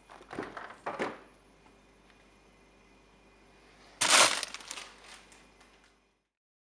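Rustling handling noises, then a loud crinkling of a plastic freezer bag of frozen mushrooms as it is grabbed, about four seconds in, dying away over the next two seconds.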